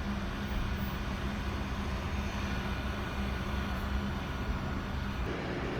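Heat gun blowing hot air with a steady fan whoosh and low hum, warming the phone's screen adhesive so the glass can be lifted. The sound eases off shortly before the end.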